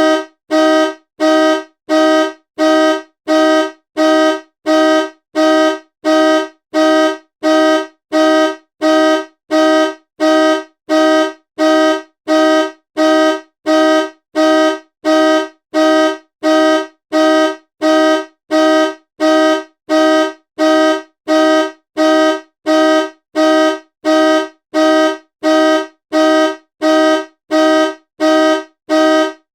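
Car horn honking in short, identical blasts repeated evenly, a little more than once a second, each lasting about half a second.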